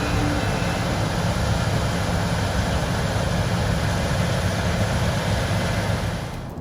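A vehicle engine running steadily under a constant rushing noise. The last notes of music end about half a second in.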